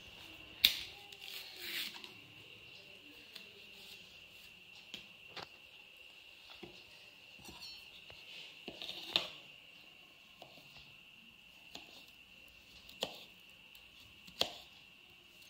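A banana being peeled by hand, the peel tearing and snapping at the start, then a kitchen knife slicing it on a wooden plate, the blade knocking sharply on the wood a few times. A faint steady high whine sits underneath.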